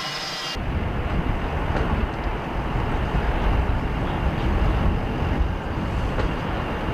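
A high jet-engine whine with steady tones cuts off abruptly about half a second in. A low, uneven rumble of wind buffeting the microphone follows.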